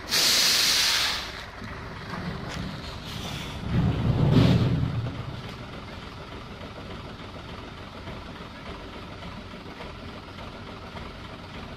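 Hino dump truck: a loud hiss of released air lasts about a second, then around four seconds in the diesel engine revs up briefly and drops back to a steady low idle.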